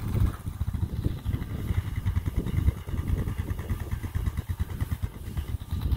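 A small vehicle engine idling with a low, uneven rumble.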